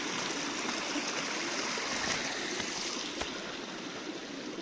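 Steady rushing of running water, like a stream, easing slightly toward the end, with one faint tap about three seconds in.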